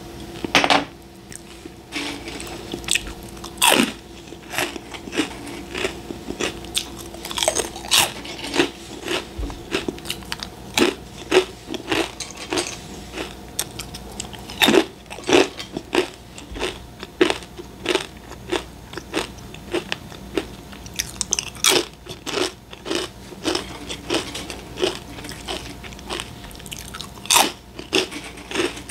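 A person biting and chewing crunchy snack crackers close to the microphone: a dense, irregular run of crisp crunches, some much louder than others.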